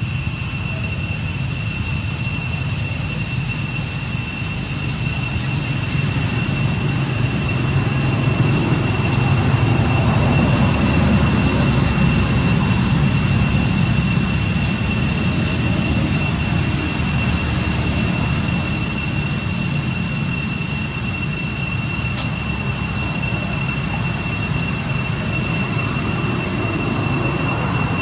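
Cicadas in the trees keep up a steady, unbroken high-pitched drone over a constant low rumble.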